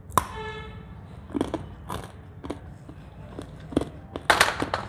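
Biting and chewing hard, crisp chana dal gajak (roasted gram-lentil and jaggery brittle): irregular sharp crunches, with a louder run of crunches near the end. The loud crunch is the sign the gajak has set properly crisp.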